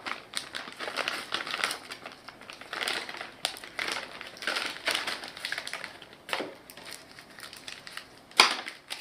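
Plastic packaging crinkling and rustling in irregular bursts as it is handled, with one sharp knock about eight and a half seconds in.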